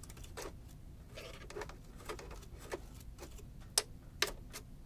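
Irregular light clicks and taps of hands and a cleaning tool working on the open sewing machine's internal parts, with two sharper clicks about four seconds in.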